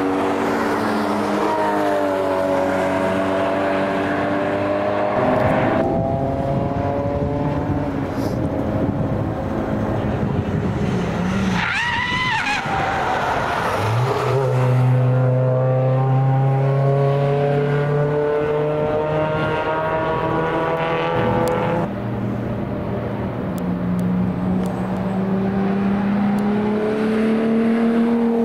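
Racing car engines running hard as several cars pass one after another on a circuit, their engine notes rising and falling through gear changes. One car passes loudly and close near the middle.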